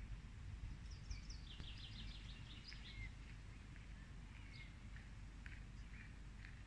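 Faint songbird singing outdoors: a quick trill of short, high, falling notes about a second in, then scattered short chirps, over a steady low background rumble.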